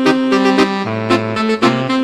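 Electronic music sequenced in FL Studio: a reedy, horn-like melody in the style of a telolet basuri bus horn, playing quick changing notes over a bass line and a steady drum beat.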